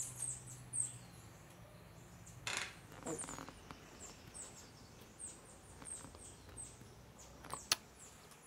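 High, thin chirps of small forest birds: short notes sliding downward, repeated on and off throughout. A brief rustle comes about two and a half seconds in, and a sharp click near the end.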